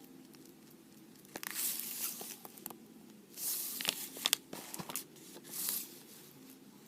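Three short bursts of rustling, crinkling handling noise with sharp clicks in them, as the slime ingredients are worked by hand.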